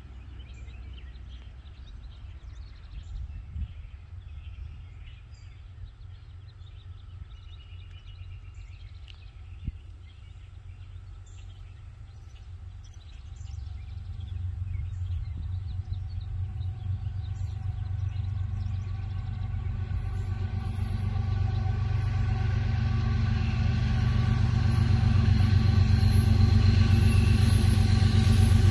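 Diesel locomotives of an approaching freight train, led by a GE ES44AC, with a low steady engine drone that swells gradually over the second half as the train draws near. Birds chirp faintly in the first half.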